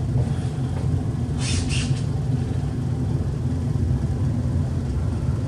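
Steady low rumble of background noise, with a brief hiss about a second and a half in.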